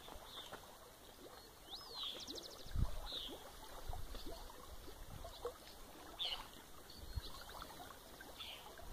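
Water splashing as a hooked fish is played at the surface on a light rod, with small birds chirping and a couple of low thumps, the loudest about three seconds in.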